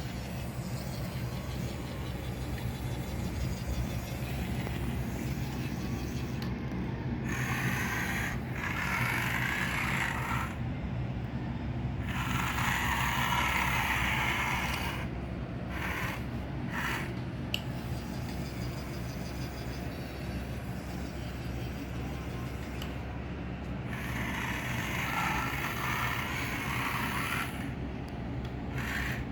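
Remote-control toy wheel excavator's small electric motors and plastic gearboxes running. A steady low hum underlies three stretches of louder, higher whirring: about a quarter of the way in, near the middle, and toward the end.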